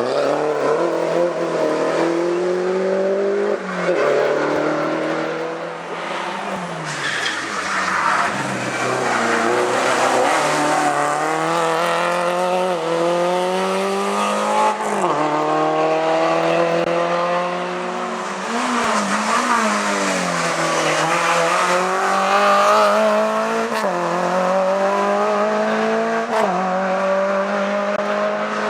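Race car engine accelerating hard through the gears, its pitch climbing and then dropping at each gear change, over and over.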